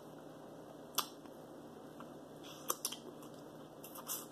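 Close-miked eating sounds of a person eating shrimp with her fingers: a few sharp, wet mouth smacks and clicks, one about a second in, a pair near three seconds, and a cluster near the end.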